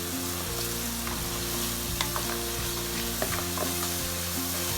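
Ginger and garlic sizzling in hot sunflower oil with whole spices in a pan, stirred with a spatula that clicks against the pan now and then.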